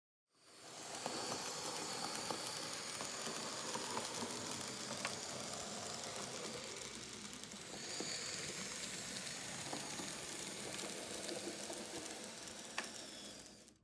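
Z gauge model train running: a thin high motor whine over a steady hiss from the track, with a few faint clicks. The whine shifts in pitch about eight seconds in.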